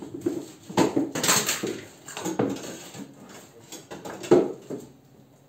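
Kitchen tongs knocking and scraping against a glass pickle jar and a glass plate as pickles are lifted out, several irregular clinks and clatters with the loudest one about four seconds in.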